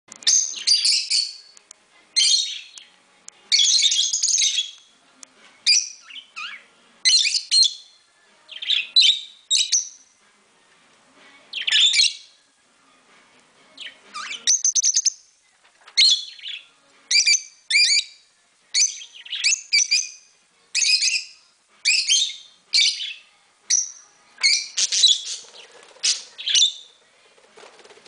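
Pet rosy-faced lovebirds and budgerigars chirping: high-pitched calls in short bursts, roughly one a second, with a brief lull a little before the middle.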